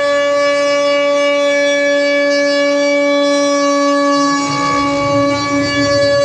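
CNC spindle running at a steady 18,000 rpm, a loud whine, with a bowl bit cutting end-grain larch. A rough low rumble of the cutting comes in about four and a half seconds in, as the bit bites back into the wood.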